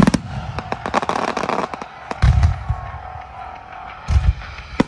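Fireworks going off in a rapid string of sharp bangs and crackles, with deep booms about two seconds in and again near the end.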